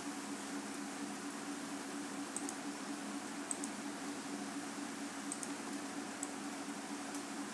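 Steady background hiss with a faint low hum from the recording setup, with a few faint computer mouse clicks, several in quick pairs.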